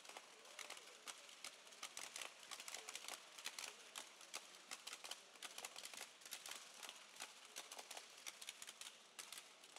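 Hockey trading cards and packs being handled and flipped through by hand: a quick, irregular run of faint clicks and ticks.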